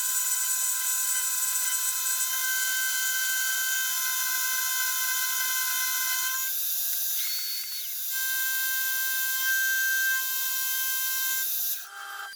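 Metalworking machine tool running with a steady high-pitched whine. It breaks off briefly about six and a half seconds in, starts again, and stops near the end.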